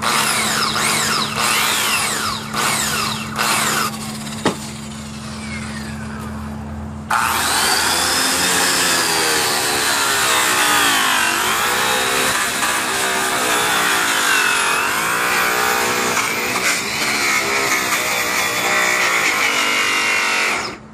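Handheld polisher spinning a white airway finishing buff while a bar of green aluminum oxide compound is pressed against it to load the buff, its pitch falling several times. About seven seconds in, the buff goes onto the aluminum wheel and a louder, steady whirring and rubbing starts, its pitch wavering as the buff is pressed and moved. It stops just before the end.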